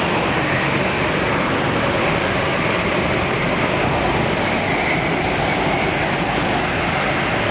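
Several racing go-karts' engines running together at speed in an indoor hall, a steady dense drone with faint engine pitches rising and falling as the karts speed up and slow.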